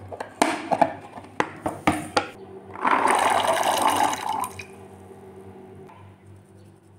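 A few sharp plastic clatters, then boiled chickpeas tipped into a steel pot of water with a splashing pour of nearly two seconds; after it, only faint light clinks.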